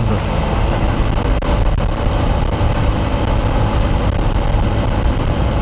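Motorcycle cruising steadily at expressway speed: a constant engine note buried under heavy wind rush on the rider's camera microphone.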